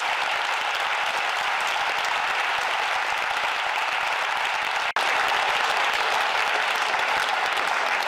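Theatre audience applauding: dense, sustained hand-clapping from many people, dropping out for an instant about five seconds in.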